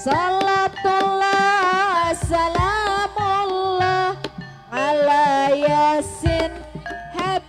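Javanese gamelan music accompanying an ebeg dance: a voice sings long held, wavering notes in two phrases, with a short break about halfway, over scattered drum strokes.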